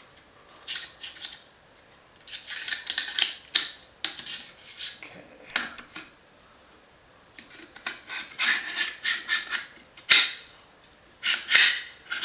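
Adams Arms piston bolt carrier group being slid into an AR-15 upper receiver for a test fit: repeated bouts of metal scraping and rubbing, broken by sharp clicks, the loudest about ten seconds in.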